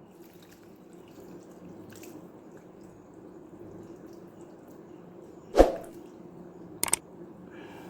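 Thin, watery sambar being poured onto rice, a faint steady trickle. One sharp knock comes about five and a half seconds in, and two light clicks come near the end.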